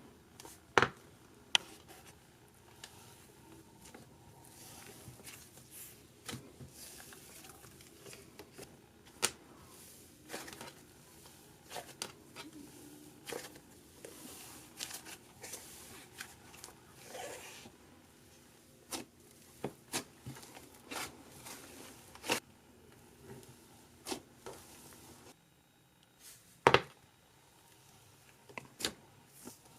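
Slime being handled, stretched and squished, with crinkly crackling and scattered sharp sticky pops and clicks.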